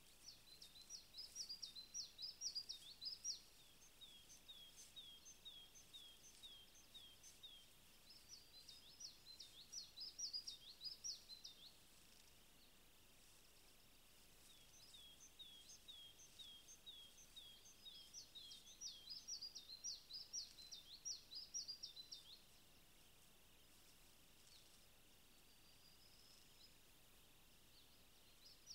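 A songbird singing high, quick songs of repeated down-slurred notes, three songs a few seconds apart, over a faint steady hiss.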